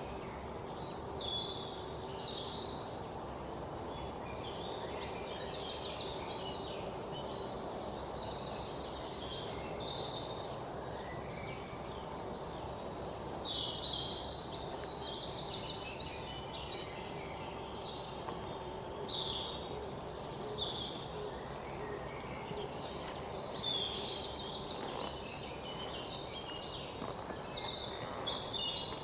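Several birds chirping and calling, with a few fast rattling trills, over steady low background noise. A single short sharp knock comes about three-quarters of the way through.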